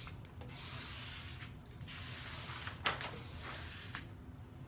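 Adhesive vinyl wrap being worked onto a mini fridge: a series of hissy rubbing strokes, each about a second long with short pauses between, and a sharp click about three seconds in.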